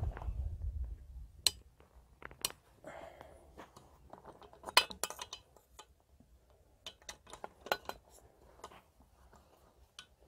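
Scattered metallic clicks and clinks as a removed EGR valve assembly with its metal pipes is handled and turned over, with a low rumble in the first second.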